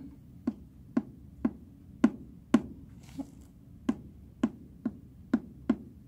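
Knocks on the front of a wooden puzzle box over its piezo knock sensor: three soft knocks then two hard ones, the secret knock code. A second, more even run of about six knocks follows.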